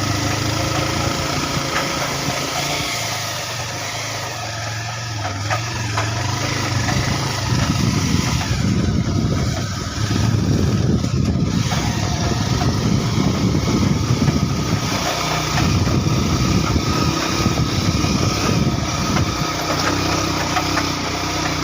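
A vehicle engine running while driving a rough, muddy dirt track. It is steady at first, then from about seven seconds in it gets louder and rougher.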